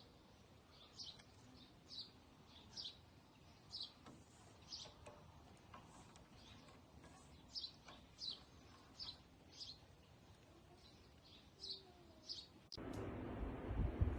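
A bird chirping over and over, a short high falling chirp about once a second. Near the end a louder rumbling noise cuts in abruptly.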